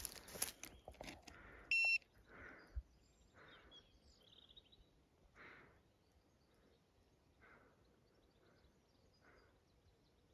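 A single short electronic beep just before two seconds in, the loudest sound here, after a second or so of rustling and handling noise. Then faint outdoor ambience with soft sounds recurring every second or two.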